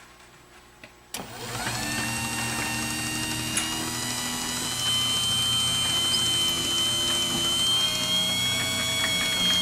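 Craftsman garage door opener, converted to a side-mount jackshaft operator, clicking on about a second in and then running steadily, a smooth, quiet motor hum with a thin whine as it drives the door.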